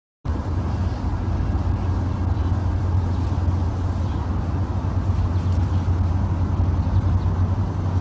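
Steady low rumble of street traffic, unchanging throughout, starting just after a brief silence at the very beginning.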